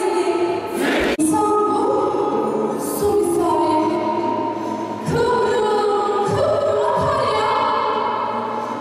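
A choir singing, cut off abruptly about a second in, then a young woman singing solo into a microphone, her voice amplified.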